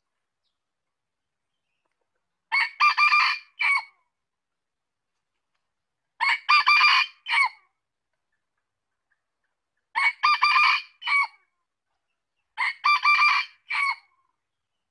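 Male red junglefowl crowing four times, about every four seconds. Each crow is short, a few quick run-together notes ending in a clipped final note.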